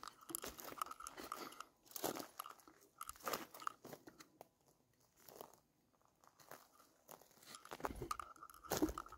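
Footsteps crunching on a dry dirt and gravel trail, about one step a second, with a quieter stretch in the middle.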